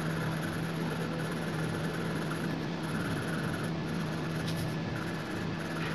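Pencil lead rubbing on paper while a sketch is shaded, under a steady low hum and hiss.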